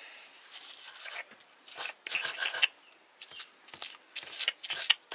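Stone muller crushing and grinding round chillies with salt on a flat stone grinding slab (silauto): quiet handling at first, then a run of rough, uneven scraping and crushing strokes from about two seconds in.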